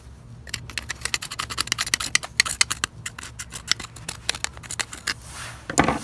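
A stiff brush scrubbing old glue off the inside of a vacuum cleaner's plastic hose cuff, in quick, uneven scratchy strokes, a few a second.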